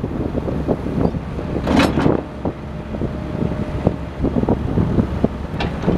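The four-cylinder Mitsubishi 4D34-TE6 diesel of a Kobelco SK-160 LC excavator runs steadily while the boom, stick and bucket move, with repeated knocks and clanks. There is a brief, sharper noisy burst about two seconds in and another near the end.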